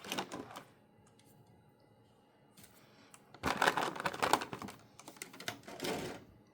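Quick clicking and clattering as the figure and its plastic packaging are handled. There is a burst at the start, a longer busy stretch from about three and a half to four and a half seconds in, and a short one near the end.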